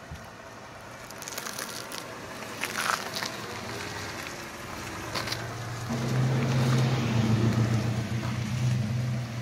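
Cadillac DTS rolling slowly on spoke wire wheels, its tyres crackling and crunching over grit on the road surface. About six seconds in, a steady low hum of the car's Northstar V8 engine idling close by takes over.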